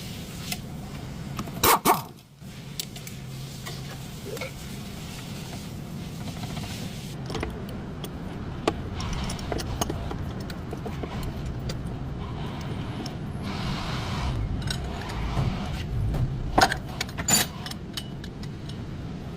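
Sharp metallic clinks and clanks from metal tools and parts, loudest in a quick pair about two seconds in and again twice near the end, over a steady low rumble.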